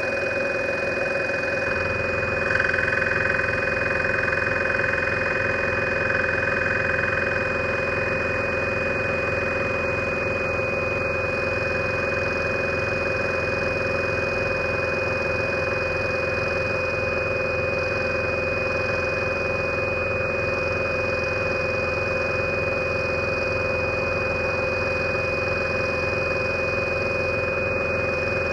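Scroller 800 scroll saw running steadily, its fine No. 2 blade cutting through wood, with an even hum and hiss; it is slightly louder from about two to seven seconds in.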